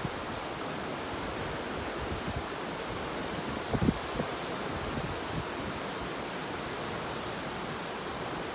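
Ocean surf: a steady wash of waves breaking, with a few brief low thumps about four seconds in.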